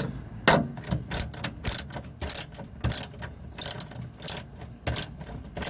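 A metal hand tool working the small 10 mm bolts of a car's rear speaker mount: irregular sharp clicks and scrapes, a few a second.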